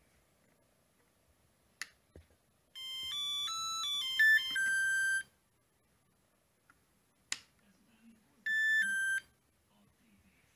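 Electronic power-up beep tunes from the Tarot 680 octocopter's electronics during ESC calibration. A run of stepped notes starts about three seconds in and lasts about two and a half seconds. Near the end comes a short two-note falling beep, and a sharp click comes shortly before each.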